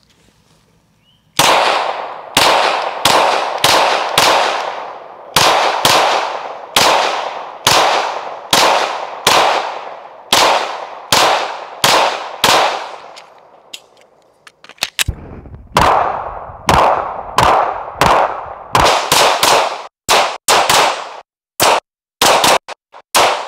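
Heckler & Koch VP9 9mm pistol firing a long string of shots at about two a second, each shot trailing off in a short echo. After a pause of about two seconds the shooting resumes and speeds up into fast strings near the end.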